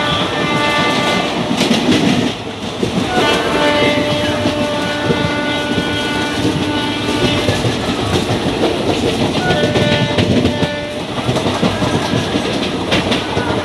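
Passenger express train running, heard from an open coach doorway: wheels clattering over rail joints and points, with a few sharp knocks. Several steady high tones sound together over the running noise for much of the time.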